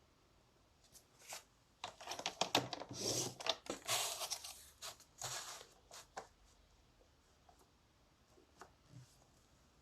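Stampin' Trimmer's scoring blade drawn along a sheet of A4 cardstock at several score lines, with paper rustling and small clicks as the sheet is moved between strokes. The scraping comes in short goes and stops about two-thirds of the way through.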